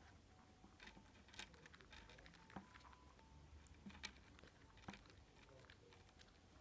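Faint, scattered clicks of hulled pumpkin seeds knocking against each other and the wooden tabletop as a Syrian hamster picks them up with its mouth. The sharpest come about a second and a half in, near four seconds and near five seconds.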